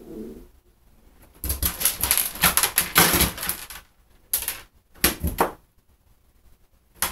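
A cat scrabbling in a bathtub strewn with dry kibble: kibble and claws clicking and rattling against the tub. There is a dense run of rapid clicks for about two and a half seconds, then two short bursts.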